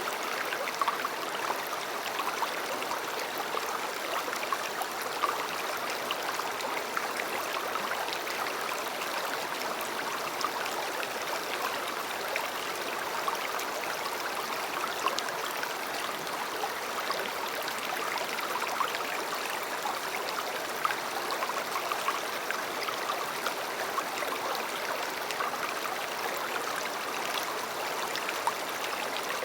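River water flowing and babbling steadily, with many small splashes.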